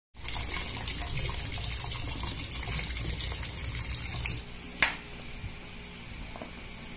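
Tap water running into a stainless steel bowl in a sink, splashing over live crabs. The flow sound cuts off about four seconds in, leaving a quieter stretch with one sharp click.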